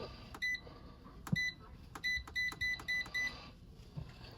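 Digital air fryer's control panel beeping as its buttons are pressed to set the temperature and time: a couple of spaced single beeps, then a quick run of about six that stops a little over three seconds in.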